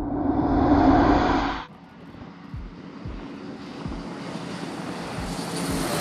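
A loud swell that cuts off abruptly about a second and a half in, then an E-2D Advanced Hawkeye's two T56 turboprop engines and propellers running: a steady drone with a propeller hum that grows louder near the end.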